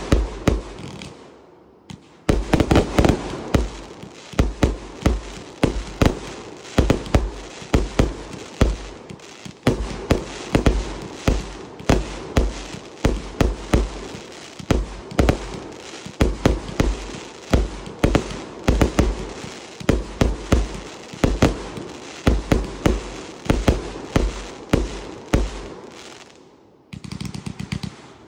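A multi-shot consumer firework cake firing a rapid, regular string of shots, about two to three a second, each a launch thump and a burst with crackle. There is a short lull about a second in, and the shots thin out and quieten near the end.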